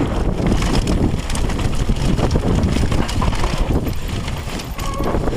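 Wind buffeting the action camera's microphone as a downhill mountain bike runs fast over a dirt and gravel trail, with tyre noise and the bike rattling over the bumps.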